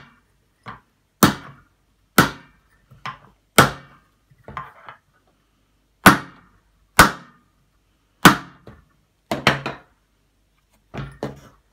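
Claw hammer tapping a ball bearing into the metal hub of a stroller wheel: a series of separate sharp knocks, roughly one a second and uneven, some hard and some lighter, to seat the bearing without cracking it.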